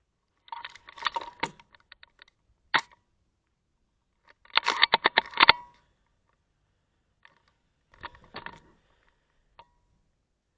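Airsoft rifle firing in short bursts of sharp clicking shots: a burst about half a second in, a single shot, a rapid run of about eight shots lasting a second near the middle, and another short burst and a single shot near the end.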